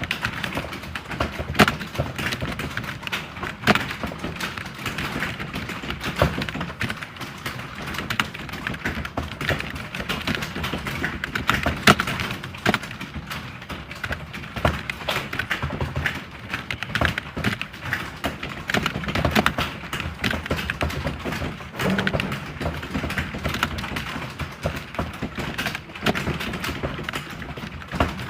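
Computer keyboard being typed on continuously: a fast, irregular stream of key clicks, with occasional heavier strikes standing out, such as the space bar or enter key.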